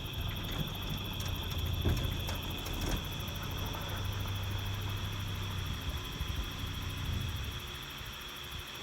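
A vehicle engine running with a low rumble that fades away about seven seconds in, under a steady high-pitched drone.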